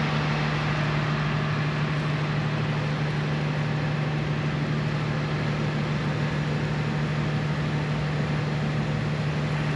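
An engine running steadily at constant speed, with a strong, even hum.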